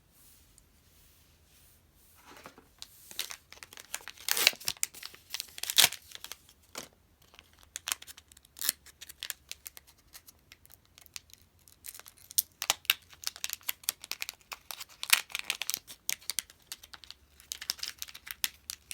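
Plastic packaging crinkling and tearing as it is unwrapped by hand: irregular crackles and rustles starting about two seconds in.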